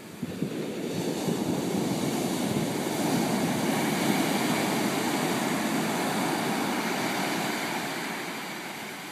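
Atlantic ocean surf at high tide: a wave breaks and its whitewater rushes up the beach in a continuous noise, building over the first couple of seconds, peaking mid-way and fading slowly toward the end.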